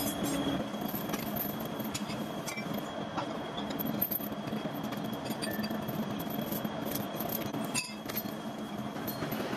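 Factory machinery running steadily, with a thin high whine throughout and scattered light metallic clinks, one sharper click about eight seconds in.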